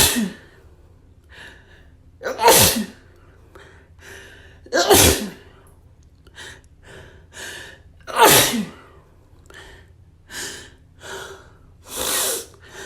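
A person sneezing again and again: one sneeze right at the start, then three more about every three seconds, each loud and falling in pitch. Quick in-breaths and sniffles come between them.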